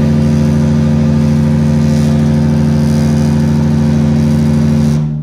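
Royal Caribbean cruise ship's horn sounding one long, loud, deep blast at a steady pitch, cutting off about five seconds in.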